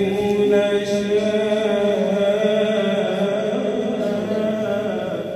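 A man reciting the Qur'an in the melodic tajwid style, drawing out one long held note at a steady pitch that fades toward the end.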